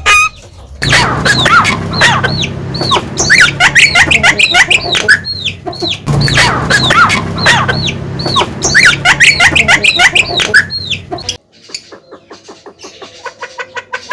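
Javan myna (jalak kebo) calling: a fast, loud chatter of short arched whistles and harsh notes. The phrase repeats once, about five seconds in, and the calling stops about two seconds before the end.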